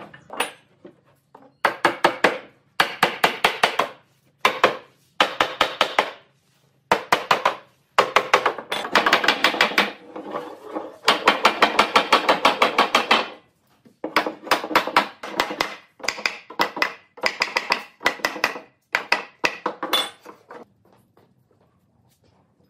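Hand sanding wood with a sanding block: rapid, scratchy back-and-forth strokes in bursts of one to a few seconds with short pauses, stopping about two seconds before the end.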